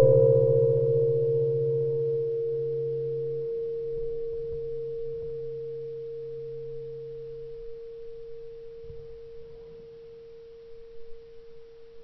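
Shotgun ringing on just after being fired, picked up through its barrel-mounted camera: a steady metallic hum that slowly dies away over about ten seconds, with its lower note dropping out partway through.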